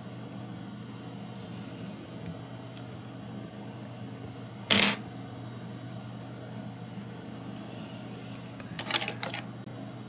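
Fly-tying hackle pliers taken off the tied-off feather and set down, making a single short, sharp metal clatter about halfway through, over a faint steady low hum. Near the end, a few softer clicks of the scissors being picked up.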